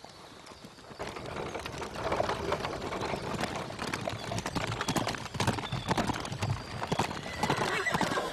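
Several horses galloping on a dirt track, their hoofbeats coming in about a second in and growing louder as they pass close by. A horse whinnies near the end.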